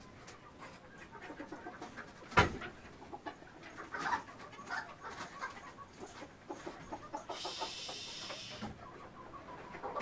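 A flock of chickens clucking in short, scattered calls, unsettled while being caught. One sharp knock comes about two and a half seconds in, and a brief hissing rustle comes near the three-quarter mark.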